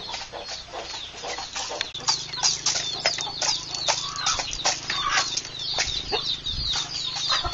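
Chickens calling: a dense, steady run of short, high cheeps and clucks.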